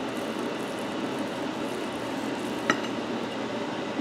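A table knife sawing through the crisp fried breading of a chicken cutlet, a steady crackling crunch. About two and a half seconds in, one sharp clink of metal on the china plate.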